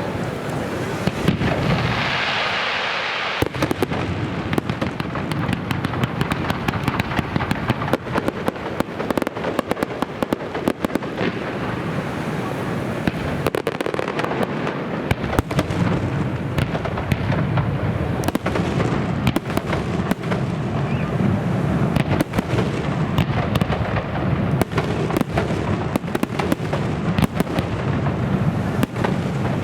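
Fireworks display: a dense, unbroken run of bangs and crackling over a steady rumble, with a brief hiss about two seconds in.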